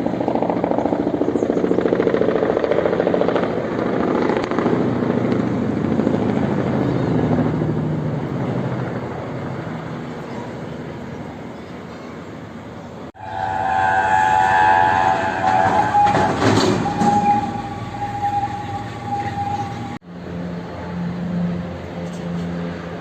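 Helicopter flying low overhead, its engine and rotor making a loud, steady drone. The sound is cut off abruptly twice, and between the cuts a different stretch of steady high-pitched tones sits over the drone.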